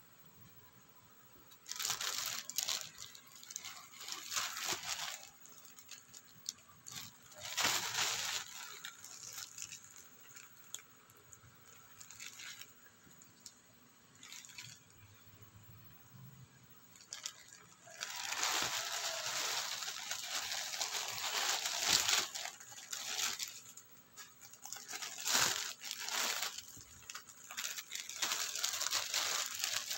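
Plastic packaging crinkling and rustling as it is handled and opened, a courier pouch and a clear plastic bag around a jersey. It comes in bursts with quieter pauses between them, the longest lasting several seconds in the second half.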